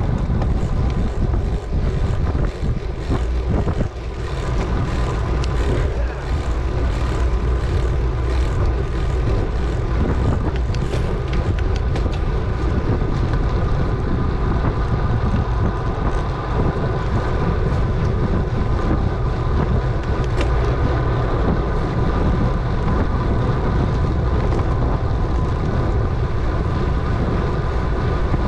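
Steady wind rush buffeting the microphone of a camera riding on a moving bicycle, with a low rumble and a steady hum underneath.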